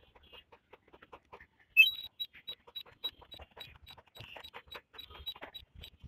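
DJI Mini SE drone-control warning alarm: high-pitched short beeps, about three a second, starting about two seconds in with a brief rising chirp. It signals a weak or lost signal to the drone, ahead of automatic Return-to-Home.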